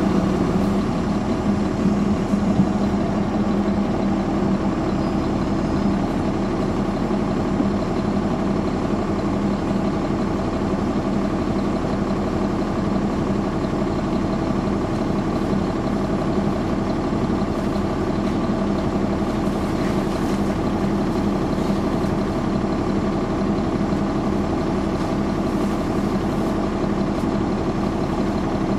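Caterpillar C13 ACERT diesel engine of a 2009 NABI 416.15 transit bus idling, a steady hum whose pitch does not change.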